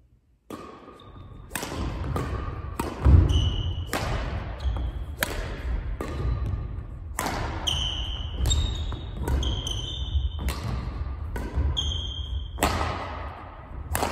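Badminton rally on a wooden indoor court: sharp racket-on-shuttlecock hits, starting with the serve about half a second in and then coming every half second to a second. Under them, footsteps thud on the sprung floor, and short high squeaks of court shoes follow many of the hits.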